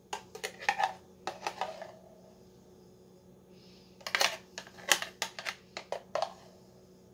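A small blender's cup taps and knocks against the rim of a glass jar while thick mayonnaise is shaken out of it. The taps come in two bunches of quick clicks, in the first two seconds and again from about four seconds in, over a faint steady hum.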